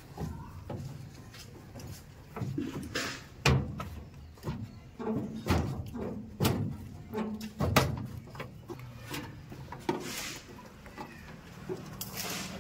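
Irregular clicks, knocks and short scrapes of insulated electrical cables being pushed through plastic cable glands and handled against a clear plastic meter enclosure.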